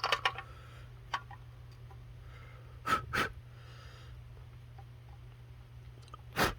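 Quiet handling of small gauge-cluster parts on a workbench: a few light clicks near the start and about a second in, then two pairs of short breathy puffs about three and six and a half seconds in, over a steady low hum.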